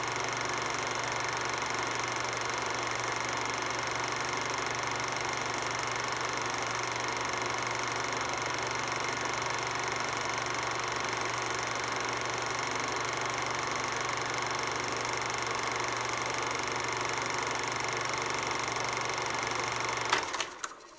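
Steady, unchanging machine-like drone: a hiss with several fixed tones. A few sharp clicks come near the end, then it cuts off suddenly.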